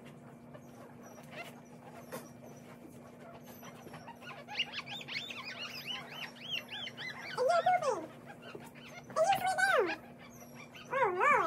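Newborn American bully puppies crying: a run of quick high squeaks starting about four seconds in, then three louder, drawn-out falling cries toward the end.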